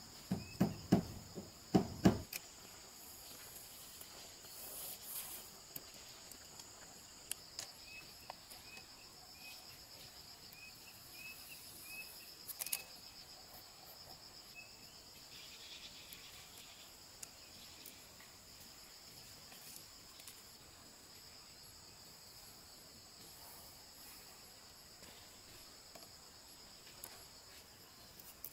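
A steady, high-pitched insect chorus, with a few sharp knocks in the first two seconds.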